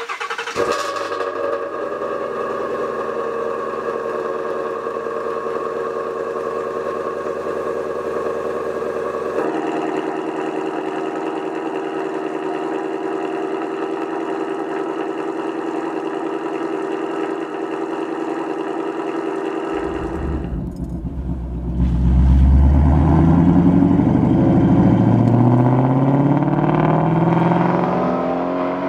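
2016 Ford Mustang Shelby GT350's 5.2-litre flat-plane-crank V8 idling steadily through its exhaust. About twenty seconds in it gets louder, revving and accelerating with its pitch rising and falling several times.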